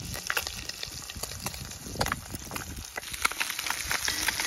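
Crappie fillets frying in hot butter in a cast-iron skillet: a steady sizzle with many crackling pops and spits.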